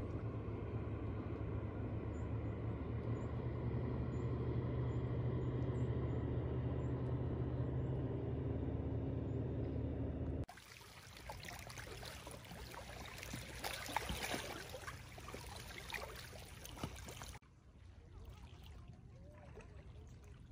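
Lakeshore ambience in three abruptly cut sections: first a steady low motor-like hum for about ten seconds, then a crackly stretch of small splashes and clicks of water lapping at the shore, then the same lapping, quieter, for the last few seconds.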